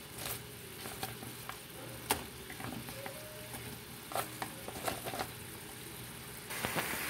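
Fried chicken pieces simmering in a soy, vinegar and honey sauce in a nonstick frying pan: a steady bubbling sizzle with scattered small pops. The sizzle grows louder near the end.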